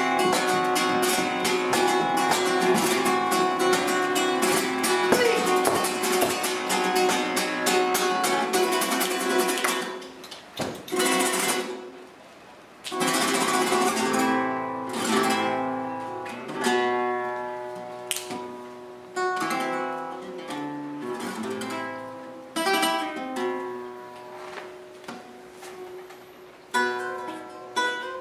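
Flamenco guitar played live: a fast, dense strummed passage for about the first ten seconds, then a short lull, then slower phrases of single chords and notes left ringing.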